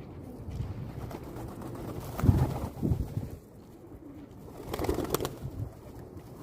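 Pigeons cooing in low pulses, with a short burst of sharp clicks and knocks about five seconds in.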